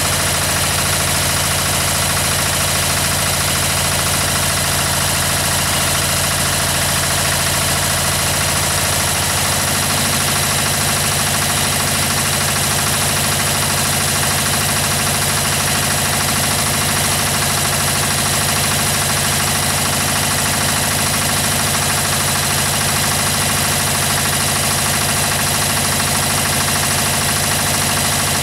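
Lombardini LDA 97 air-cooled single-cylinder diesel of a Pasquali 945 tractor idling steadily after a cold start, with a knocking diesel beat. Its note shifts slightly about nine seconds in.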